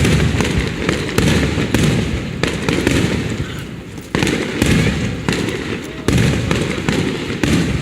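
Aerial fireworks shells bursting overhead: a string of booms, roughly one every second or so, each trailing into a long rumbling echo with crackle above it, with a short lull about three to four seconds in.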